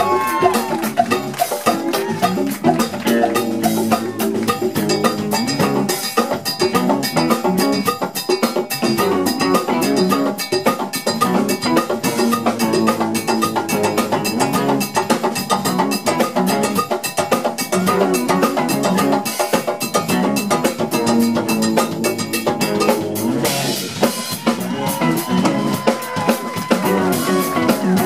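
Live funk band playing an instrumental groove: drum kit with congas and hand percussion driving a busy rhythm under electric guitars, bass and keyboards.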